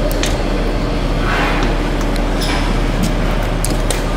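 Steady running noise of industrial machinery: a constant low hum and drone with scattered light clicks and knocks.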